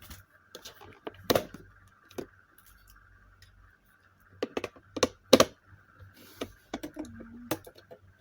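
Scattered plastic clicks and knocks of a selfie stick being fitted and twisted into a phone stand, with a few sharp clacks, the loudest a cluster about five seconds in.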